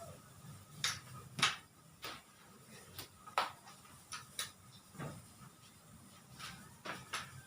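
Irregular sharp clicks and knocks, about a dozen spread over several seconds, as small hard objects are handled and set down.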